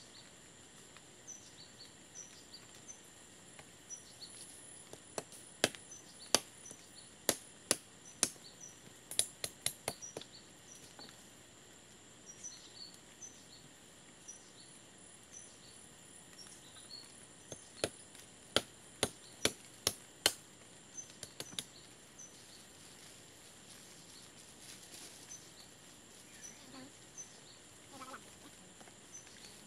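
Sharp chopping blows on wood in two bouts of quick strikes, about ten blows at first and eight more some ten seconds later. The blows come over a steady high insect drone and faint bird chirps.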